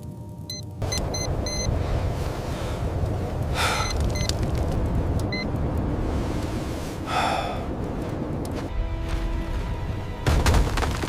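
A steady roar of blizzard wind under dramatic music, coming on suddenly about a second in, with two brief swells and a heavy boom near the end.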